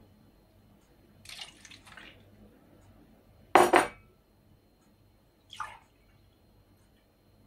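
Milk being poured into a mixing bowl of whisked eggs and from a bottle into a glass mug, with a sharp double clink of glass on the table about halfway through, the loudest sound.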